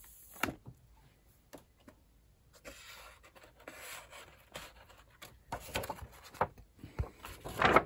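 Sheet of textured printmaking paper rustling and crackling as it is peeled back off an inked lino block and flexed, with a few sharp clicks; the loudest crinkle comes near the end.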